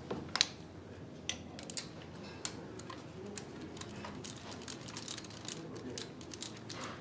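Sharp metal clicks and taps as hand tools and a compression tester hose are handled and fitted on a bare Mercedes-Benz OM642 V6 diesel engine. A few louder clicks come in the first couple of seconds, then a run of quick small ticks.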